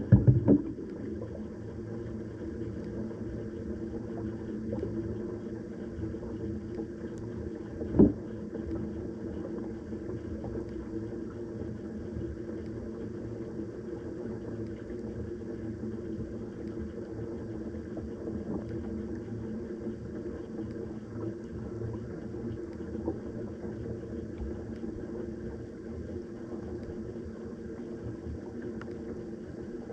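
A steady low mechanical hum, with one sharp knock about eight seconds in.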